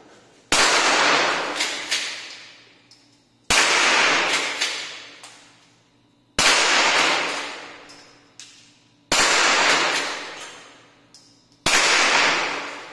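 Five gunshots from a Rossi Gallery pump-action rifle being test-fired after repair, about three seconds apart. Each is a sharp crack with a long echoing tail in the enclosed range, with faint clicks between shots as the action is worked.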